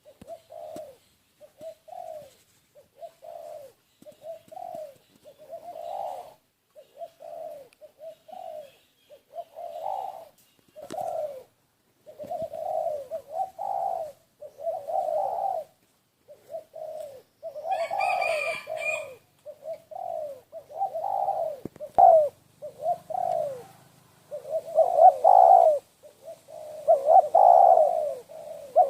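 Doves cooing: short repeated coos about one a second, growing louder and closer together toward the end, with a brief higher chirp about eighteen seconds in.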